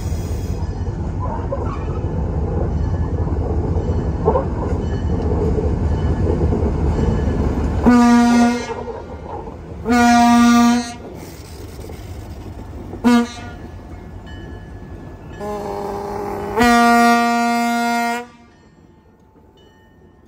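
Diesel switcher locomotive running close by with a heavy low engine rumble. It then sounds its air horn long, long, short, long, the standard grade-crossing signal, with the last blast held longest.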